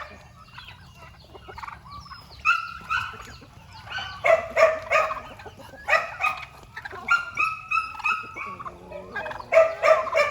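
Domestic turkeys calling in repeated bursts of short, high notes. The bursts start about two seconds in and come every second or so.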